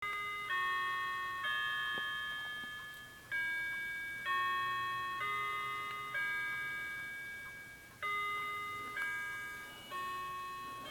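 A clock's chimes playing a melody: struck, ringing notes about a second apart in phrases of four, each note fading before the next.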